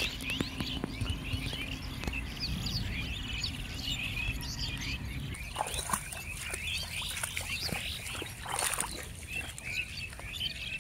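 Many small birds chirping and twittering. A few short splashing and rustling sounds of wading through shallow water and wet grass come mostly in the second half.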